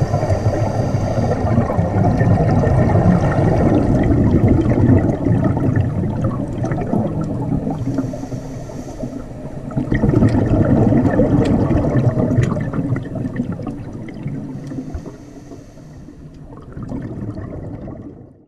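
Scuba regulator breathing recorded underwater: a short hissing inhale followed by a long, rumbling burst of exhaled bubbles, three times over. Scattered sharp clicks run underneath.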